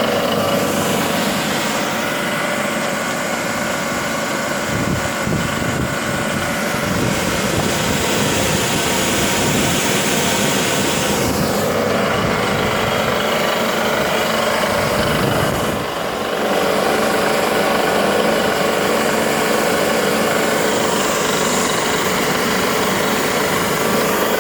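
Handmade fire hose washing machine running: a steady machine hum with a hiss of noise over it.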